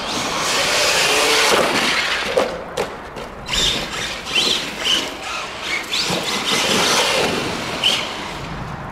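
Arrma Big Rock 3S electric RC monster truck driven hard over dirt: a loud rush of tyres and motor for the first couple of seconds, then a run of short, high squeals from the brushless motor as the throttle is blipped.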